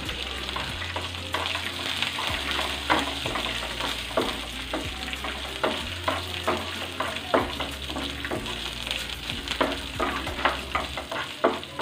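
Cashews and raisins sizzling in ghee in a nonstick frying pan, stirred, with many short clicks of the stirring utensil against the pan.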